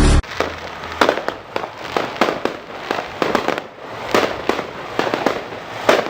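Fireworks going off: an irregular run of sharp bangs and crackles, about three a second.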